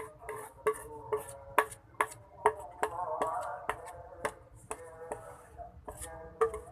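A spoon knocking repeatedly against a pan or bowl while a thick mixture is stirred, giving sharp irregular clicks about twice a second.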